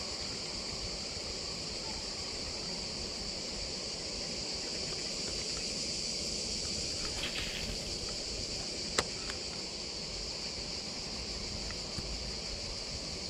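Steady high-pitched chorus of summer insects. A single sharp click about nine seconds in.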